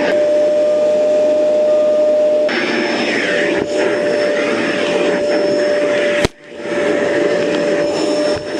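Vacuum cleaner running, a steady rushing noise with a constant high whine. About two-thirds of the way through there is a sharp click and the sound drops out briefly before coming back.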